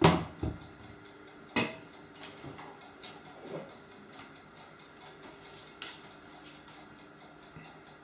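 A few sharp clinks and knocks of a utensil against a pan and dishes, the loudest at the very start and about a second and a half in, with a few quieter taps between.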